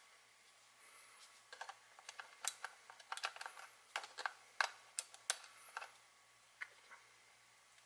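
Sharp, irregular clicks of buttons and controls on a Samsung NX500 mirrorless camera being pressed and handled, a quick run of them over a few seconds that thins out near the end.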